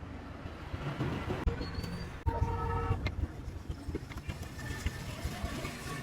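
Low background rumble of traffic, with a vehicle horn tooting once, briefly, a little over two seconds in, and a few sharp knocks.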